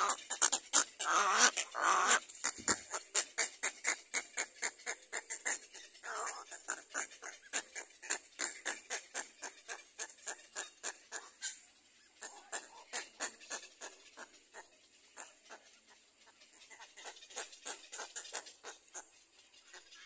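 Little egret chicks giving rapid ticking begging calls at the nest, several a second, with harsher squawks at the start. The calls fade about twelve seconds in, then resume more faintly.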